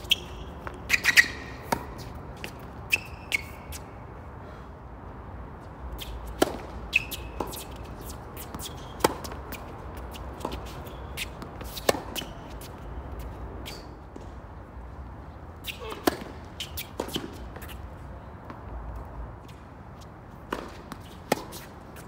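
Tennis ball being struck by rackets and bouncing on a hard court during a singles rally: sharp pops and thuds every second or two, with a few short squeaks of shoes on the court.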